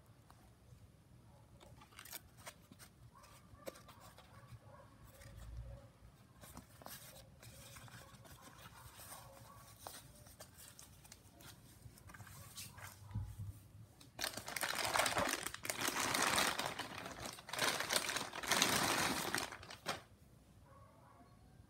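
Clear plastic bag crinkling loudly in several bursts over about six seconds, starting about two-thirds of the way through, as a cordless drill is unwrapped from it. Before that there are only faint scattered clicks and handling of the plastic tool case.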